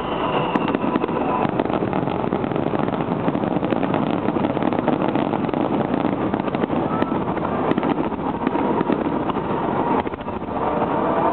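Fireworks display: many shells and rapid-fire bursts going off in quick succession, their bangs and crackles running together into a continuous din, with a brief lull about ten seconds in.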